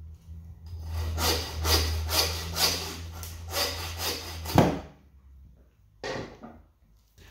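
Hand meat saw cutting through lamb bone, with quick back-and-forth strokes, about two to three a second, for roughly four seconds. The sawing ends in a sharp knock.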